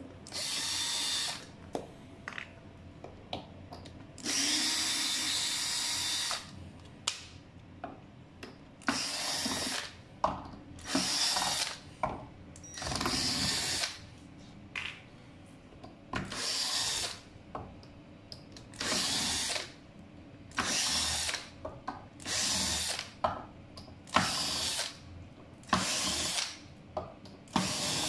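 Cordless drill-driver backing out the deck-plate screws of an electric scooter, in about a dozen short runs of one to two seconds each. Small clicks and knocks fall between the runs.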